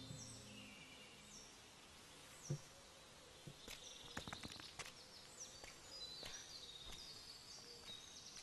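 Faint outdoor ambience of high, short chirps that fall in pitch, repeated every half second or so and thicker in the second half, with a few soft clicks scattered through. Background music dies away in the first second.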